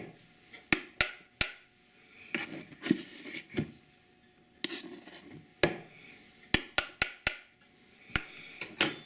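A quarter-cup measure scooping flour and tipping it into a bowl. Soft scrapes and rustles are broken by sharp clicks and knocks of the cup against the dish, including a quick run of four about two-thirds of the way through.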